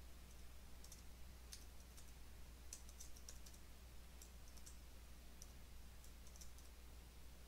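Faint computer keyboard keystrokes, typed irregularly in short runs, over a steady low hum.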